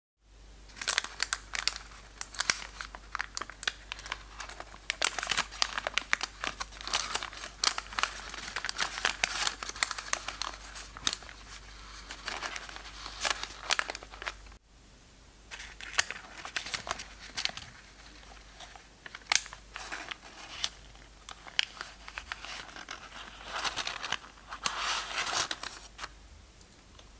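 Baking-paper tulip muffin liner crinkling and crackling as it is peeled away from a baked muffin, a run of quick crisp paper rustles. There is a short break about halfway.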